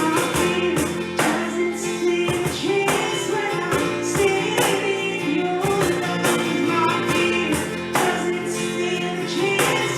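Worship song played by a band, with a steady beat and singing.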